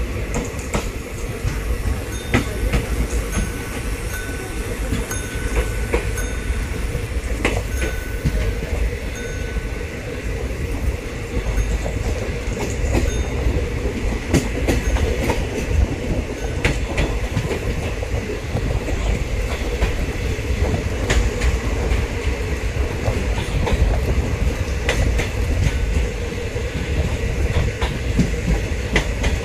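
Lionel O-gauge model train running on three-rail tubular track: a steady rumble with irregular clicks of the wheels over the rail joints.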